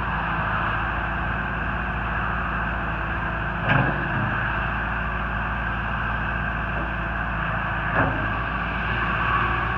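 CAT 259D skid steer's 3.3-litre diesel engine running steadily, with two short knocks, one just under 4 seconds in and one about 8 seconds in.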